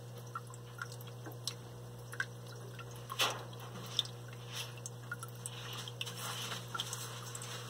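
Water dripping and trickling irregularly from a rock waterfall filter in a reptile enclosure, with one louder drip about three seconds in, over a steady low hum.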